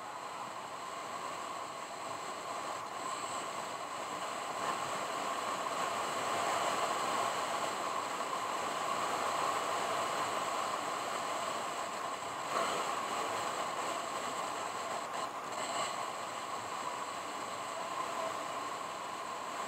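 Steady road and wind noise of a car driving, an even rushing hiss that swells a little midway and eases off again.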